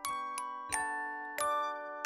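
Background music of bell-like mallet chords, struck about every two-thirds of a second, each one ringing on until the next.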